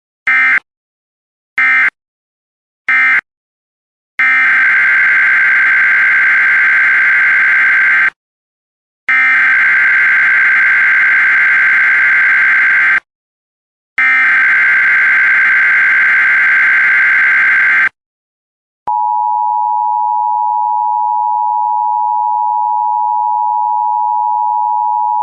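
Emergency Alert System data and tones. Three short SAME data bursts about a second and a half apart close the previous alert as the end-of-message code. They are followed by three long SAME header bursts of about four seconds each announcing the next alert. In the last six seconds the steady EAS two-tone attention signal begins, two close tones near 900 Hz sounding together.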